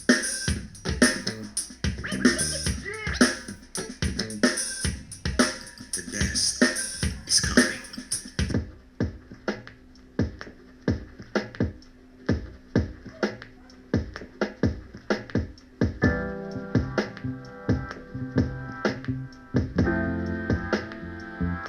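Music played through an XDOBO Draco Mini Bluetooth speaker: a steady electronic drum beat. About eight and a half seconds in the top end drops away, and in the last third sustained keyboard chords come in over the beat.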